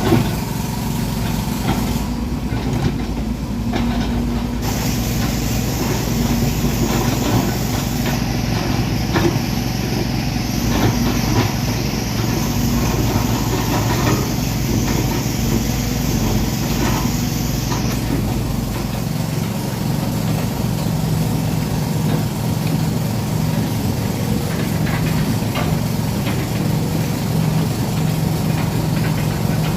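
Excavator's diesel engine running steadily at a constant speed. The deepest part of the rumble drops away about two-thirds of the way through, while the engine note carries on.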